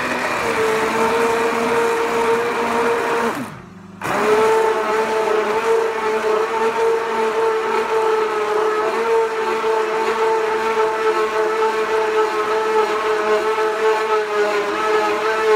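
Hand-held stick blender running steadily while it purées chunky tomato and bean soup in a jug. It winds down and stops about three and a half seconds in, then starts again half a second later and runs on.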